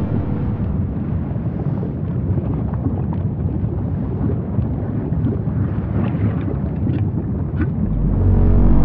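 Low, dense rumbling of a volcanic eruption, with a few sharp crackles in the second half. Background music swells back in near the end.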